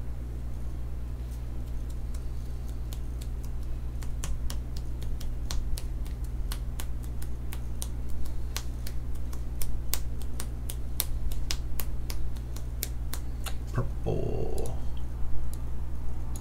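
Irregular clicking of a computer keyboard and mouse, a few clicks a second, over a steady low hum, with a short, different sound about two seconds before the end.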